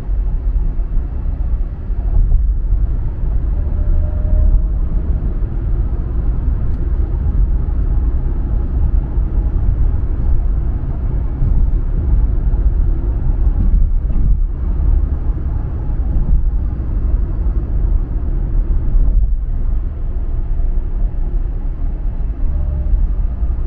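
A car driving steadily, with a low, continuous rumble of road and engine noise.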